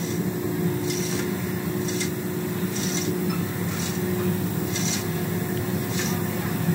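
Gloved hand rubbing over the new steel piston of a grab's hydraulic cylinder: a short scratchy stroke about once a second, over a steady low machinery hum.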